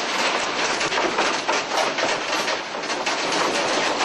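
Continuous loud rattling and clattering of office furniture, shelving and equipment shaken by a strong earthquake.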